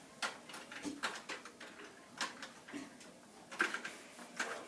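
A scatter of sharp clicks and taps, about half a dozen over the few seconds: classroom supplies such as markers being picked up and handled at desks.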